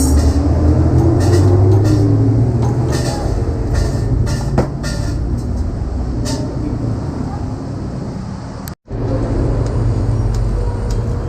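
Heavy motor-vehicle engines running with a low rumble and slowly rising and falling engine pitch, with scattered clicks and knocks; the sound cuts out for a moment about nine seconds in.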